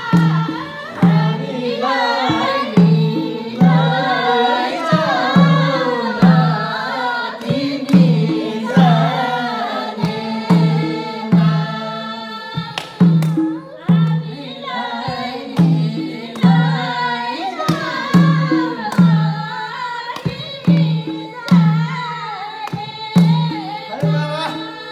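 Voices singing a folk song over a hand drum that beats a steady low stroke about one and a half times a second.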